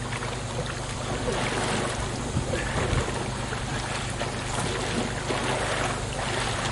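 Water splashing and sloshing around a playboat kayak as it is driven stern-down into the water and then capsizes, with wind rumbling on the microphone.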